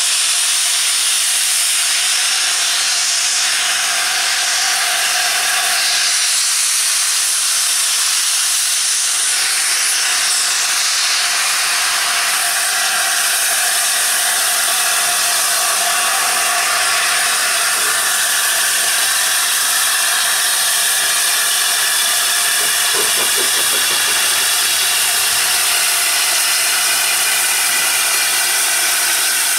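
LNER A4 locomotive No. 4464 Bittern venting steam from its open cylinder drain cocks as it moves off slowly: a loud, steady hiss.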